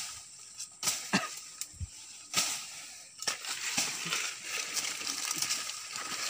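People pushing through jungle undergrowth: leaves rustling and brush being trampled, with a series of sharp twig snaps in the first few seconds.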